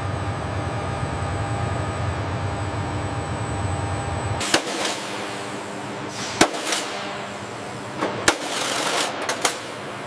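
A steady low industrial hum, then from about halfway in a handful of sharp mechanical clacks a second or two apart with a burst of hiss, from robotic arms working around an upright aircraft fuselage barrel on a circular rail.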